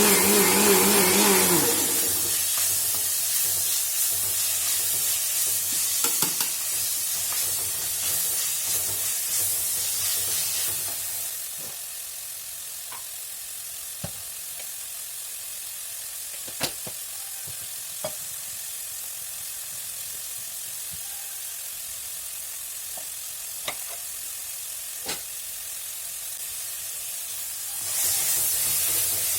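Onion, tomato and green-chilli masala sizzling in oil in a bell-metal uruli, with a few clicks. The sizzle drops quieter about eleven seconds in and rises again near the end. A mixer grinder's whir, grinding the roasted coconut, stops at the very start.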